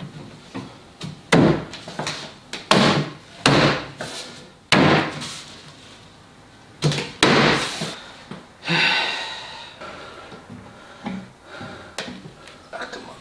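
Hard wooden thumps, about six in the first eight seconds, as an MDF carcass panel is pushed and knocked down onto glued dowels and rails. Near the middle comes a short hiss, then softer light knocks.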